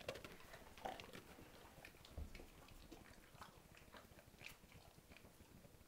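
A dog chewing or mouthing something, faint scattered clicks and smacks.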